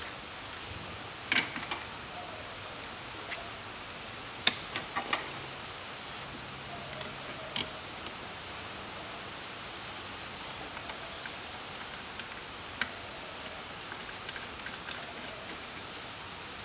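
Scattered clicks and knocks of hoses and fittings being handled in a car's engine bay, the sharpest a little over a second in and around four and a half to five seconds in, over a steady hiss.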